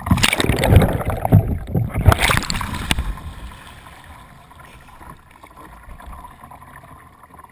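Sea kayak capsizing and rolling back upright: loud splashing and churning water for about three seconds, then a quieter wash of water lapping around the boat as it settles.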